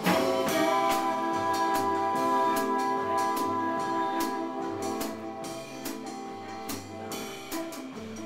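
Live small jazz band playing with upright bass and horn: a loud accent at the start, then a held chord that slowly fades, with scattered light percussion taps.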